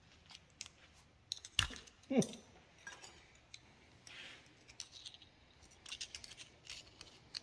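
Small steel hand tools, a pocket screwdriver and a seal pick, clicking and scraping against the inside of a hydraulic cylinder gland while digging out a stubborn old seal. Faint irregular ticks throughout, with a sharp click about a second and a half in and a short falling squeak just after it.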